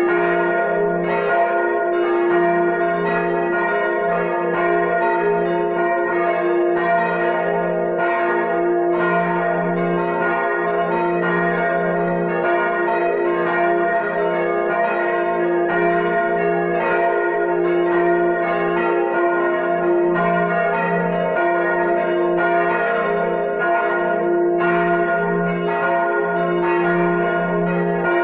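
Full peal of four swinging bronze church bells, tuned to D-flat, B-flat, A-flat and F, ringing together in a dense, steady stream of overlapping strokes over a sustained hum. This is the peal rung a quarter of an hour before a service.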